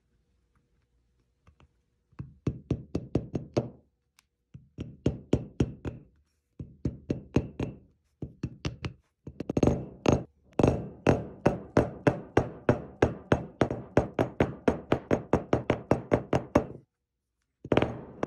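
Rubber mallet tapping lightly and quickly on a shaft seal, driving it into the bearing bore of a steel housing plate. The taps come in runs of about five a second with short pauses between, the longest run in the second half.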